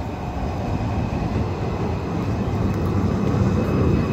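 Tram pulling into the stop, its low rumble growing louder as it comes alongside, with a faint steady high whine.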